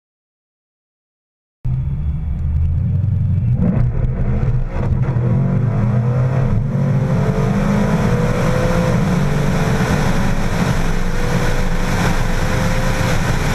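Supercharged V8 of a drag-racing Holden VF Commodore running hard with a deep, steady rumble and a faint whine that slowly rises in pitch. The sound cuts in abruptly out of silence about a second and a half in.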